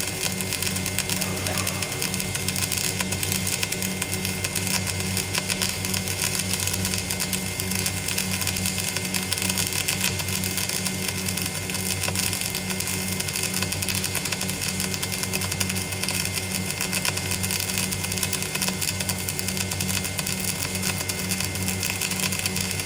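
Electric arc welding: a continuous, even crackling hiss of the arc with a steady low hum underneath, running without a break.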